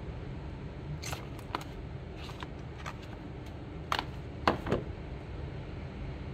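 Handling sounds of a perfume bottle being lifted out of its cardboard box insert: a scattering of light taps and scrapes, with the three loudest close together near the end, over a steady low background noise.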